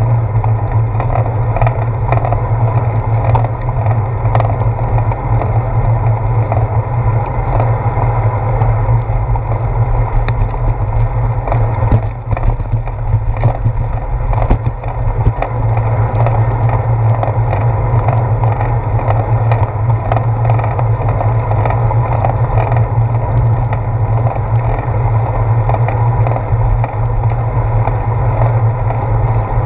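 Steady, loud low rumble of wind and road vibration picked up by a handlebar-mounted GoPro Hero 4 on a moving bicycle, with many small clicks and knocks from bumps in the pavement. The rumble dips and changes briefly about halfway through as the bike crosses a small bridge.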